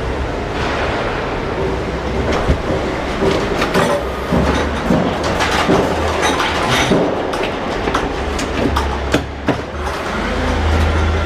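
Forklift with a paper-roll clamp running with a steady low engine hum while it pushes a large paper roll into a truck trailer, with a string of irregular knocks, clicks and creaks as the roll shifts and is set in place.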